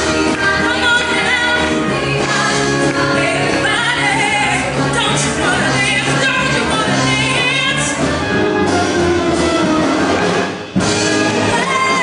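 Women singing a 1960s pop and soul number with instrumental backing, the voices in close harmony around a lead. The music breaks off briefly near the end, then comes back in at full level.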